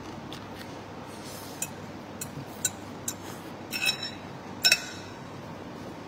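Light clinks and taps of tableware against a ceramic bowl, about six scattered over a few seconds, the two loudest near the middle with a brief ring, over a steady background hiss.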